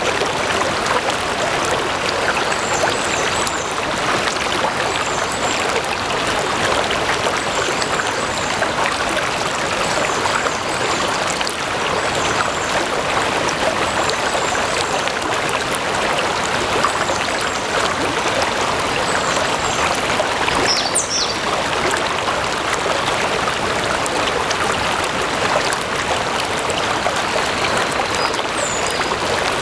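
Stream water flowing and trickling steadily. Faint, short high chirps repeat every second or two above it.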